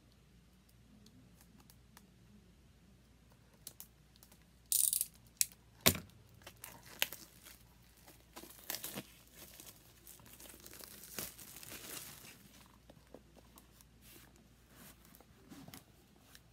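Clear plastic shrink wrap being torn and peeled off a cardboard box by hand. A few sharp clicks and a short loud rip come about five seconds in, followed by several seconds of crinkling as the wrap is pulled away.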